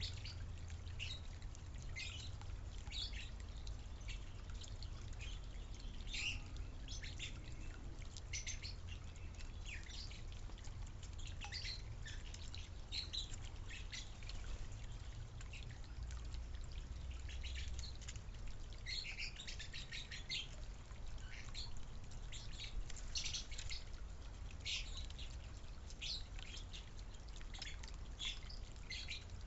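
Small backyard birds chirping, many short high calls overlapping throughout, over a low steady rumble.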